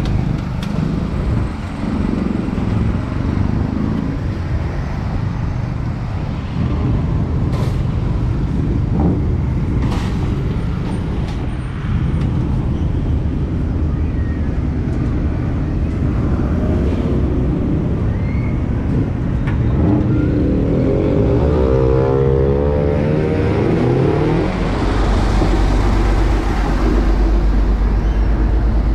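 Busy city street traffic: motorbikes and cars running past, with a few sharp knocks early on. Around twenty seconds in, an engine revs up and down. A deeper engine rumble takes over near the end.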